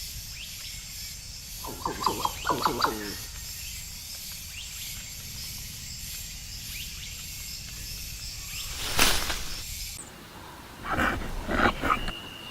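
Animal calls: a short run of pitched calls about two seconds in, a loud harsh call about nine seconds in, and a few more calls near the end, over a steady high background hiss.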